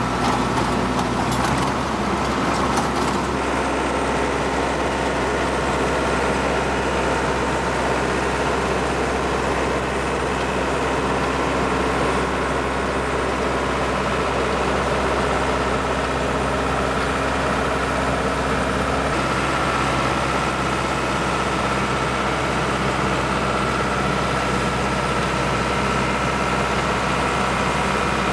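John Deere compact tractor's diesel engine running steadily under load, driving a PTO-powered soil conditioner whose rotor churns through dirt. A few light clicks near the start.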